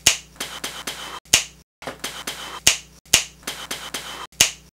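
Sharp snap-like clicks in a steady rhythm: a loud one about every 1.3 seconds with lighter clicks between, broken by a few brief dropouts to dead silence.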